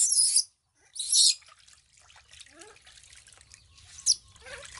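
Water splashing in a plastic basin as a hand scoops and pours it over a baby monkey being bathed: two loud splashes in the first second or so, then quieter trickling and dripping with a few faint short squeaks from the baby monkey, and a sharp splash near the end.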